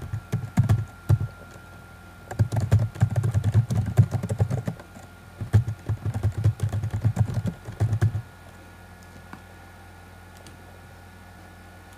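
Typing on a computer keyboard in quick bursts of keystrokes, each key with a dull thud, stopping about eight seconds in.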